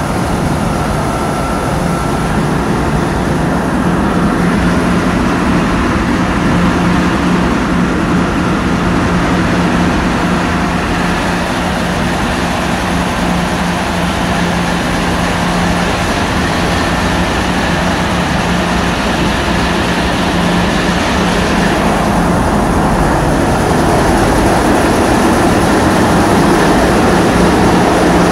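Tugboat's diesel engines running steadily: a constant low hum under a loud, even rushing noise.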